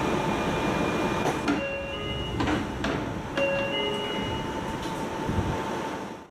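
A Japanese train's passenger doors opening and closing over a steady hum, with sharp clicks and two stretches of held tones. The sound cuts off abruptly at the end.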